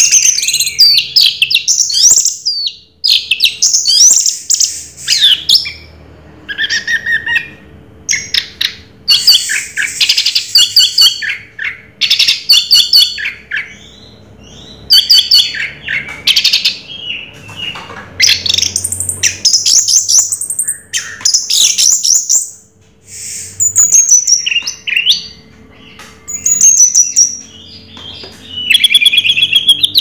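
Orange-headed thrush singing a loud, varied song: repeated phrases of rapid chattering notes, trills and slurred whistles, each a second or two long, with short pauses between.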